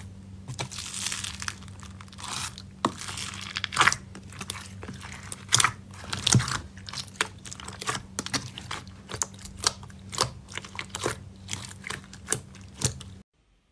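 A hand squeezing and kneading floam, green slime packed with small white foam beads, in a plastic tub: a steady run of crunching with sharp crackles and pops, over a faint low hum. It cuts off abruptly near the end.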